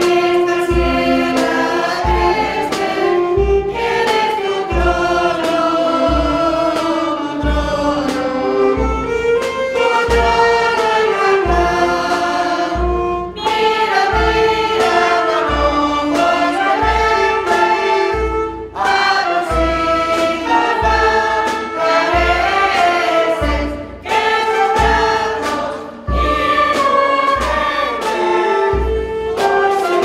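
A women's choir singing a hymn, accompanied by a small band of clarinets with a bass drum keeping a steady beat. The singing breaks briefly between phrases.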